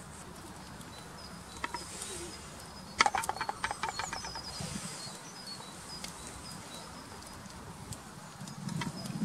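Outdoor ambience with small birds chirping, high thin notes repeating. About three seconds in, a sudden loud rapid rattle lasts over a second; it is the loudest sound here.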